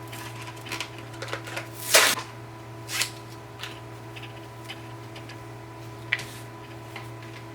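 Hands handling thin flat elastic and a notebook cover: scattered rustles and light taps, the loudest about two seconds in, over a steady electrical hum.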